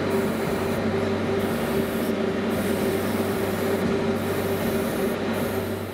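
Airbrush spraying thinned gloss varnish at about 25 psi: a steady hiss of compressed air and atomised paint, with a steady motor hum underneath. It fades out near the end.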